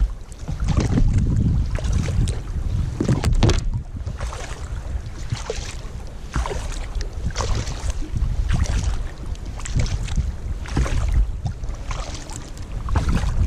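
Sea kayak being paddled through choppy water: repeated splashes of the paddle blades, about one a second, over a steady rumble of wind on the microphone.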